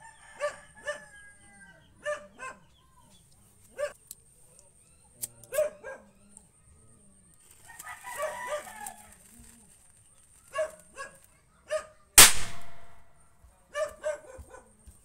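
A tiny homemade triangle firecracker, the smallest 0.1 size, goes off with one sharp bang about twelve seconds in. A dog barks repeatedly, in short bursts before and after the bang.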